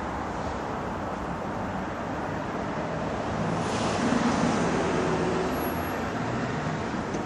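Steady street traffic noise, swelling as a vehicle passes close about four seconds in.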